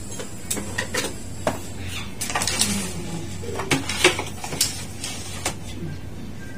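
Irregular clicks, taps and clatter of a screwdriver and an air-conditioner inverter board being handled on a hard workbench, over a steady low hum.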